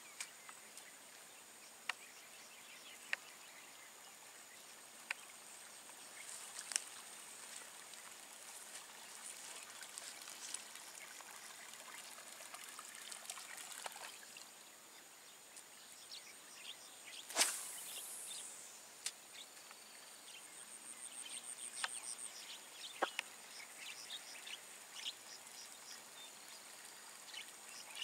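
A spinning rod cast about 17 seconds in: a sharp swish and a falling whistle as the lure and line fly out. Scattered faint ticks and splashes run through the rest as a topwater lure is worked back across the water, over a steady high insect drone.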